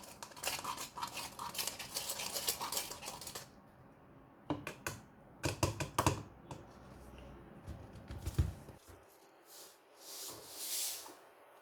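A spoon stirring and scraping a thick toothpaste-and-salt mix in a cup: a quick run of scraping clicks for about three and a half seconds, then a few separate taps and knocks, and a soft hiss near the end.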